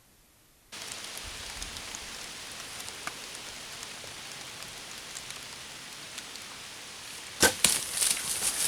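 A bow being shot at a deer: a sharp snap about seven and a half seconds in, followed by a quick run of cracks and rustling, over a steady outdoor hiss.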